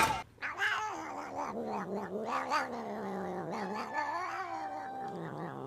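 Domestic cat yowling: one long, drawn-out call that wavers up and down in pitch, with a few brief breaks.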